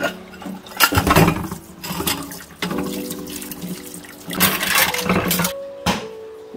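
Water from a kitchen tap running into a stainless steel sink and splashing over dishes, louder in two surges, about a second in and again after four seconds, with a short click near the end. Soft background music plays under it.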